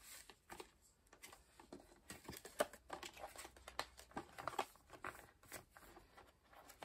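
Faint crinkling and light clicking of thin clear plastic binder sleeves as photocards are handled and slid into their pockets, with one sharper click about two and a half seconds in.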